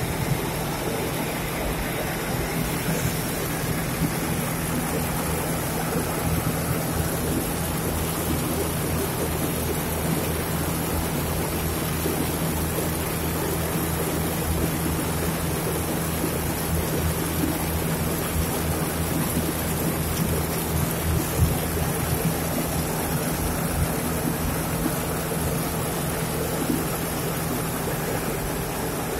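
Belt-driven bran cutter for a flour mill running steadily under its electric motor: a constant hum under an even rushing noise, with no change in speed.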